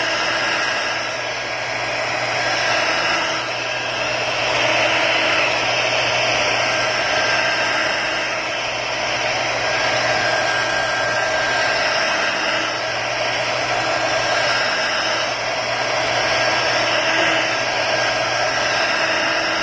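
RadioShack handheld heat gun blowing hot air steadily, its fan hum swelling and easing a little as it is moved around over the phone's cracked glass to soften the adhesive beneath.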